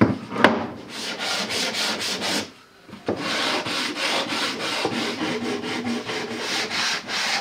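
Poplar plywood box sanded by hand with sandpaper: scratchy rubbing strokes, settling into an even rhythm of about three strokes a second after a brief pause. A sharp wooden knock near the start as the box is set down on the bench.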